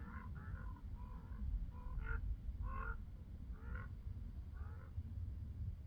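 American crows cawing from the flock overhead: a run of short, harsh caws, one after another, that stops a little before the end.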